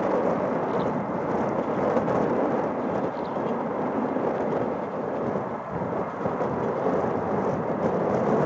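Boeing 747 freighter taxiing with its four jet engines at low power: a steady, even rumbling rush of engine noise.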